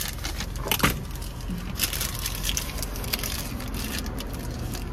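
Crinkling and rustling of a brown paper takeout bag, a run of sharp crackles, the loudest about a second in, over the steady low hum of a car idling.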